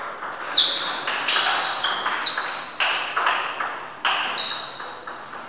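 Table tennis rally: the ball clicks off the rubber bats and the table about twice a second, each hit ringing briefly with a high ping. The rally ends a little past four seconds in.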